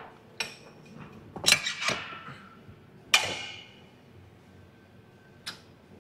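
Metal plates of a gym weight stack clanking together with a ringing clink: a cluster about a second and a half in, a louder clank about three seconds in, and a lighter one near the end.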